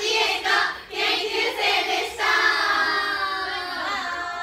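A group of girls' voices calling out together in unison: a few short calls, then one long drawn-out call whose pitch sags slightly.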